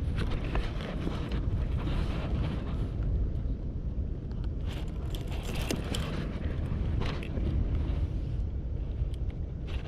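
Wind buffeting the microphone, a steady low rumble, with a few light clicks scattered through it.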